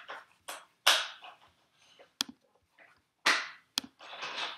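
A series of sharp clicks and knocks, about six in four seconds, the loudest about a second in and again past three seconds, with quiet between them.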